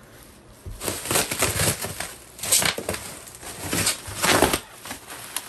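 Bubble wrap rustling and crinkling as it is handled and pulled off a packed item, in several uneven surges starting about a second in.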